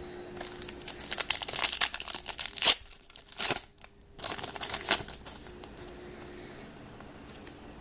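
Crinkling and tearing of plastic card packaging as trading cards are handled, in two bursts with a short pause between, then quiet handling.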